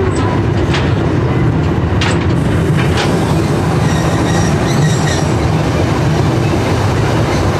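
Train running along the track, heard from aboard: a steady loud rumble of the running gear with a few sharp clicks from the wheels in the first three seconds and a faint high squeal from the wheels around the middle.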